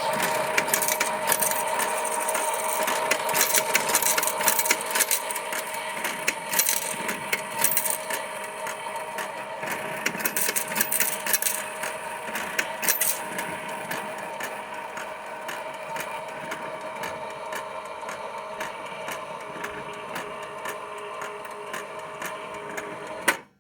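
Johnson Model D fare box running through its coin-counting cycle: a steady motor whine with coins and mechanism clicking and rattling, busiest in the first half. It stops suddenly near the end.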